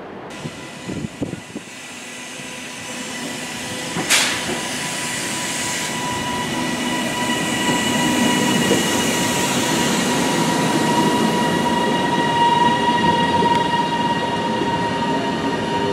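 TransPennine Express Class 397 electric multiple unit moving slowly along the platform, its running growing louder, with a steady high whine. There is a single sharp knock about four seconds in.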